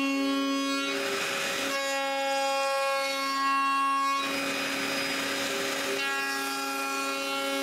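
Table-mounted router running with a steady whine, a round-over bit cutting the edges of a wooden piece. The cut adds a louder rushing noise twice, briefly about a second in and again for about two seconds from four seconds in.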